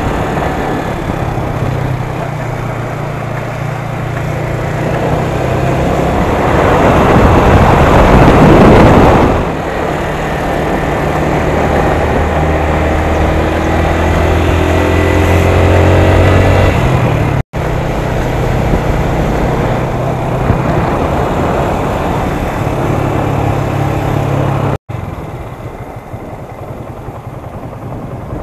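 Motorcycle engine running on the road, its revs climbing in steps as it accelerates through the gears, with wind rushing over the camera microphone, loudest about eight seconds in.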